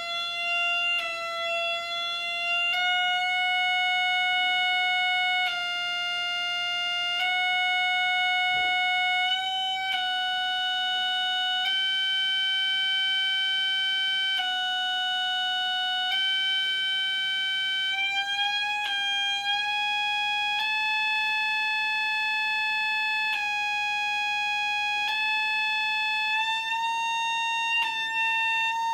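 Electronic oscillator circuit on a mid-1970s Gakken MyKit MX-180 electronics kit, sounding a single steady electronic tone that jumps to a new pitch every second or two and creeps upward overall.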